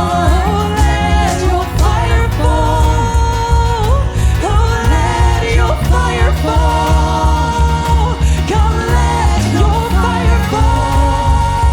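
Live worship band music with a steady pulsing bass and singing, with long held notes about every three to four seconds.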